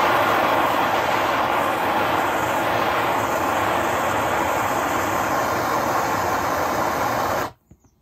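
Hand-held gas torch flame burning with a steady loud hiss, cut off abruptly near the end.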